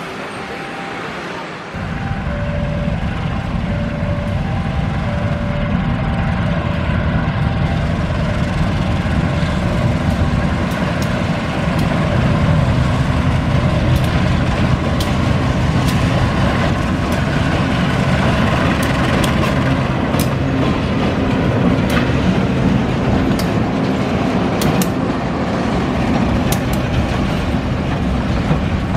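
KAI diesel-electric locomotive running loud and steady as it approaches and passes, hauling a train of hopper wagons. The engine sound comes in suddenly about two seconds in. An alternating two-note chime sounds over it for the first several seconds, and sharp wheel clicks over the rail joints grow more frequent in the second half.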